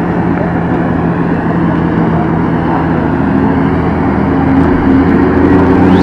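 Steady low hum of a docked Ro-Ro ferry's diesel engines running, holding one pitch.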